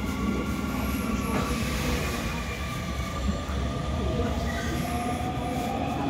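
Hanshin Railway electric train pulling away from a station, heard from inside the carriage: a steady low running rumble under a motor whine that climbs slowly in pitch as the train picks up speed.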